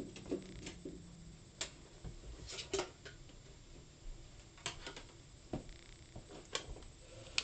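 A scattering of light clicks and knocks, about ten at uneven intervals, from someone moving about and handling things.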